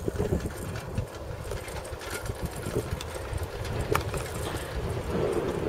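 Wind buffeting the microphone during a fast bicycle descent: a gusty low rumble, with a few sharp clicks and rattles about once a second.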